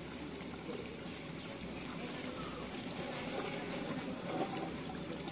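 Beef curry bubbling in a large aluminium pot while a long ladle stirs through the meat.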